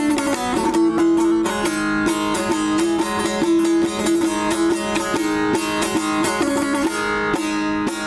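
Background music: a plucked string instrument playing a fast melody over a steady drone note.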